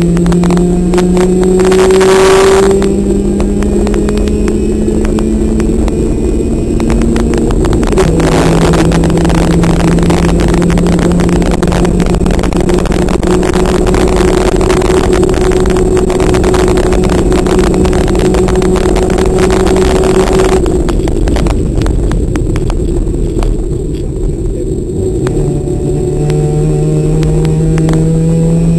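Car engine heard from inside the cabin, pulling hard with its pitch climbing slowly. The pitch drops sharply about eight seconds in, as at an upshift, then climbs again. About twenty seconds in the throttle closes and the engine goes quieter and lower for a few seconds, then picks up and climbs again near the end.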